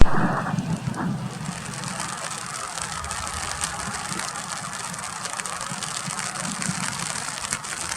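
Distant jet noise of a Boeing KC-135R Stratotanker's four CFM F108 turbofans, receding and settling to a steady low rumble after the first second, mixed with the hiss of rain.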